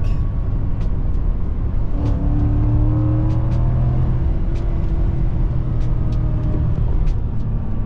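Ford F-150's 5.0 L Coyote V8 accelerating, heard from inside the cab, its note rising steadily in pitch as the revs climb from about two seconds in until late on.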